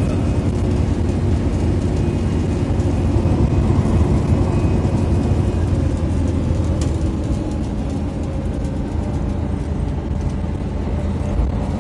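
Coach running, heard from inside the passenger cabin: a steady low rumble of engine and road noise as the bus drives.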